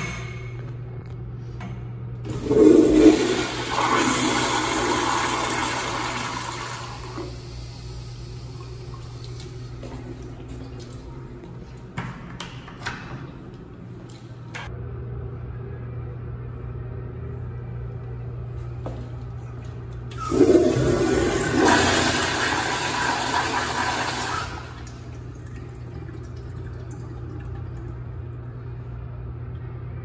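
Commercial toilets with chrome flushometer valves flushing twice: a loud rush of water with a sharp start, each lasting about five seconds, the first a couple of seconds in and the second about twenty seconds in. A steady low hum runs underneath, with a few clicks about twelve seconds in.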